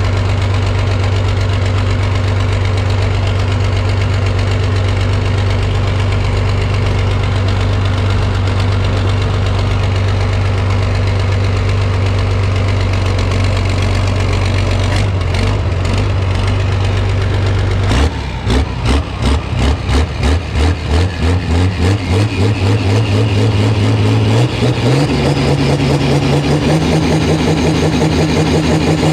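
Large engine running at a steady idle, then from about eighteen seconds in with a rhythmic pulsing about twice a second, its pitch stepping up near the end.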